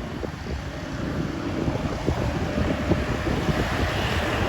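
Bus engine and road traffic noise, growing louder as the bus approaches, with wind on the microphone. No horn sounds yet.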